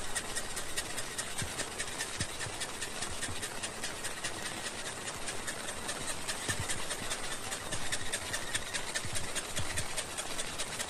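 Heavy rain pouring down: a steady, dense hiss of drops, with a few soft low thumps.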